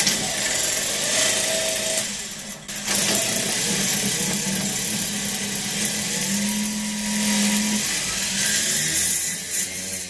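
Large Ford Falcon / F100 V8 starter motor spinning free on the bench, run straight off a battery lead without its solenoid, with a steady whir and hum. Power drops out briefly about two seconds in, then it spins up again. Its used brushes are still seating on the commutator.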